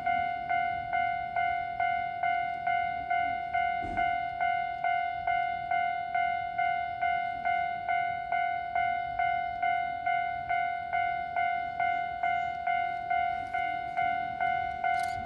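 Japanese railway level-crossing electronic warning bell ringing, a clear single-pitched ding repeated evenly about three times a second: the crossing alarm signalling an approaching train.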